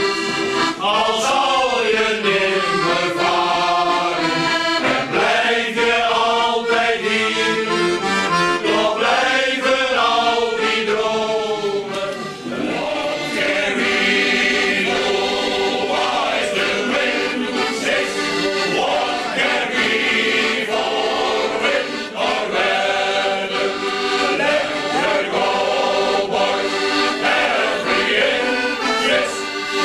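Men's shanty choir singing to the accompaniment of several accordions. The accordions carry steady chords beneath the voices, with a short dip about twelve seconds in.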